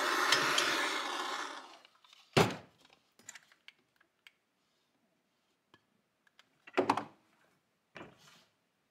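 Handheld gas torch burning with a steady hiss as it heats the aluminium crankcase's bearing bore to expand it for a press-in bearing, shut off about two seconds in. A sharp knock follows, then a few scattered clicks and clunks of tools on the bench near the end.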